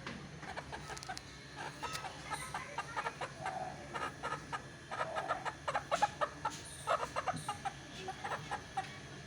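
Rooster clucking in a quick run of short notes, busiest a little past the middle.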